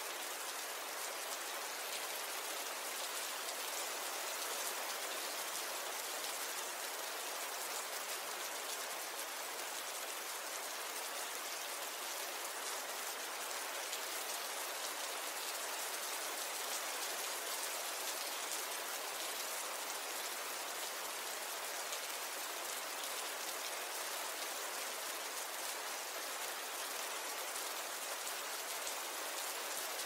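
Steady rainfall, an even hiss of many drops with no breaks or changes.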